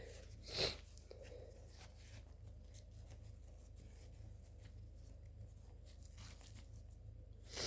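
A short, sharp rush of air through the nose about half a second in, with a second one starting right at the end, and faint rustling in the quiet between.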